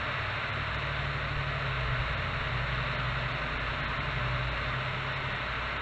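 Steady FM static hiss from a Wouxun KG-UV6D handheld radio's speaker, with a low hum underneath. The squelch is open on the satellite downlink and no station comes through in reply to the call.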